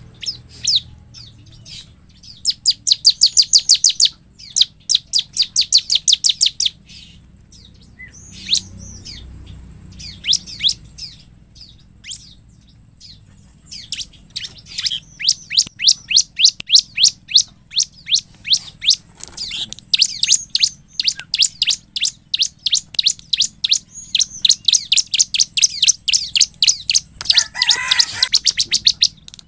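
Bar-winged prinia (ciblek) singing: runs of rapid, sharp, high chirps, several notes a second, in bursts of a few seconds with short pauses, then a long unbroken run from about halfway through. A brief lower, harsher call comes near the end.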